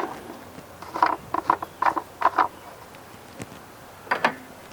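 Plastic oil filler cap on a Honda Civic engine being twisted off, squeaking in a quick run of short chirps, with one more squeak near the end.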